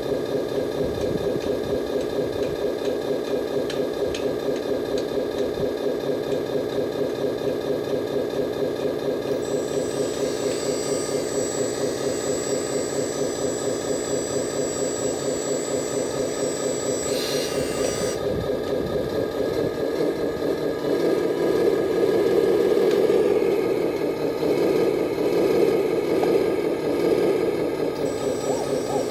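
Diesel engine sound from the scale RC Mercedes-Benz Arocs dump truck's sound unit, idling with an even pulse. A thin high whine runs from about ten to eighteen seconds in while the tipper bed rises. The engine note grows louder for several seconds near the end.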